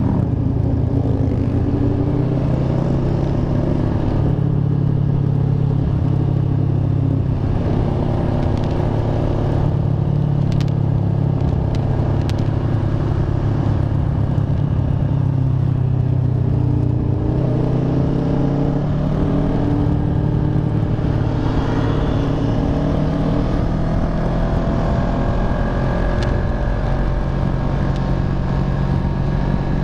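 Kawasaki ER-6n 650 cc parallel-twin engine running under way, heard from the rider's position with steady wind rush; the engine note climbs a few times as the bike accelerates.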